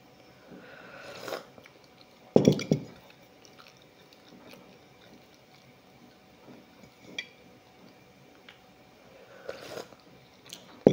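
Sipping from a mug with a soft slurp, then a loud knock about two seconds in as the mug is set down, with quiet chewing and small clicks. A second sip comes near the end, followed by another knock.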